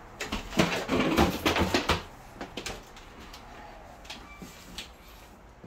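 Footsteps on hardwood floors and knocks from handling the camera while walking. There is a quick run of knocks and rustles in the first two seconds, then only a few faint clicks.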